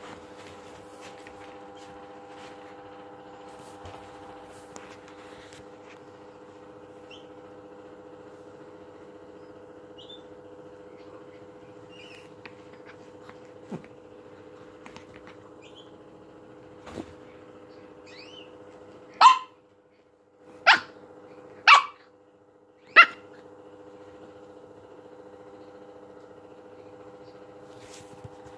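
A small dog barks four times, short barks about a second apart, about two-thirds of the way in.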